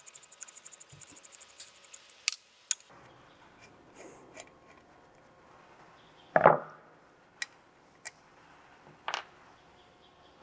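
Clicks and light scraping of metal parts being handled on a stainless steel submersible pump as its mesh intake grate and cable guard are worked loose and slid up the body. A quick run of faint ticks at first, then scattered sharp clicks and one louder knock about six and a half seconds in.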